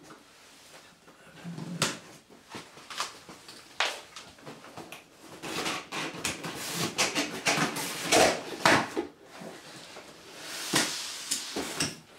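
Large cardboard box being handled and opened: cardboard scraping and rubbing, with a run of knocks and several louder thumps as it is laid down on a wooden floor and its lid flap is pulled open.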